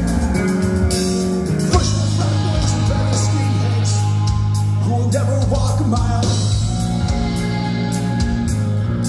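A punk rock band playing live, loud: distorted electric guitars, bass guitar and drum kit.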